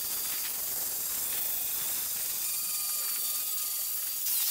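A power tool working steel stock: a steady high hiss with a faint steady whine, and a short louder burst near the end.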